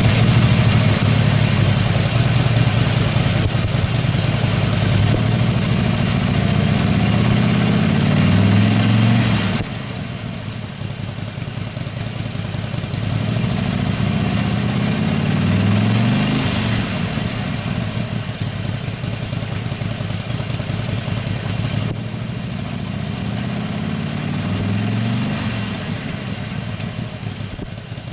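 Harley-Davidson Sportster Forty-Eight (XL1200X) 1200 cc air-cooled V-twin idling through its stock Japan-market muffler, just after starting. It runs louder for about the first ten seconds, then drops to a quieter idle, with a couple of gentle rises and falls in engine speed later on.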